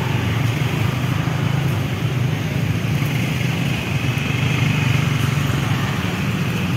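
Diesel engine of a KAI CC 203 diesel-electric locomotive running steadily at idle while the locomotive is turned on a turntable, a constant low engine hum.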